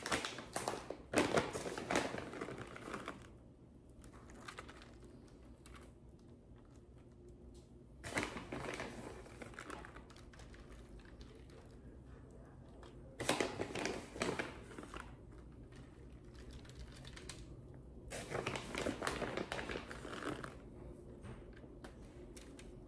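Crinkling and rustling of something being handled, in four bouts of one to two seconds each, with quiet room tone between.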